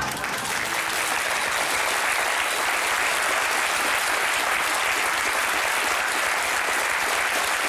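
Studio audience applauding, a steady dense clapping from a large crowd.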